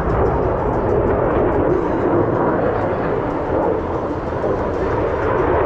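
Jet aircraft flying past, its engine noise a steady, loud rush with no distinct pitch.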